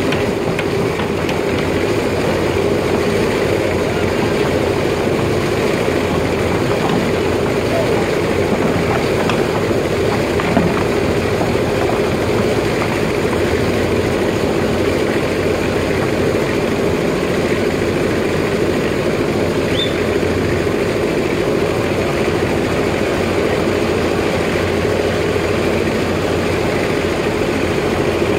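Hyundai crawler excavator's diesel engine running steadily under load while the arm and bucket dig soil.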